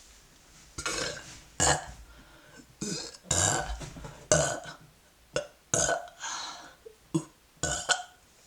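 A woman burping repeatedly: a string of about ten short burps in quick succession, each starting abruptly.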